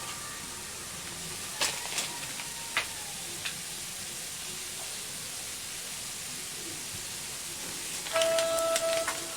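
Food sizzling in a pan, a steady hiss with a few sharp clicks of a utensil in the first half. A sustained musical note comes in near the end.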